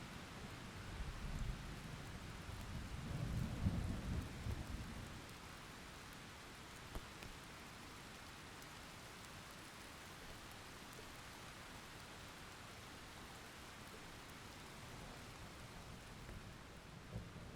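Steady rain with a low roll of thunder in the first few seconds, loudest about four seconds in and fading out by about five seconds. Then rain alone, until a new rumble of thunder begins just before the end.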